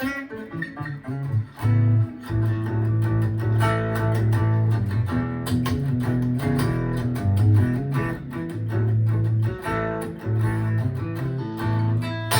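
Gibson ES-335 semi-hollow electric guitar played through an amp: a riff of held low notes and chords with frequent picked attacks.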